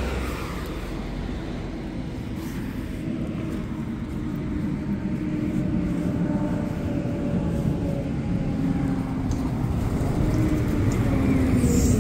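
A car passes at the start. Then a Mercedes-Benz Conecto city bus draws near and pulls in, growing steadily louder, with a sustained whining howl from its cooling fan running hard because of a cooling fault.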